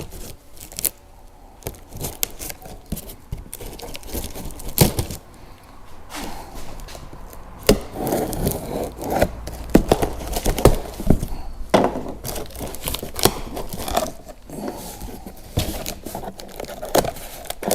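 A cardboard shipping box being opened by hand: tape tearing and cardboard and packing material rustling and crinkling, with scattered knocks and scrapes.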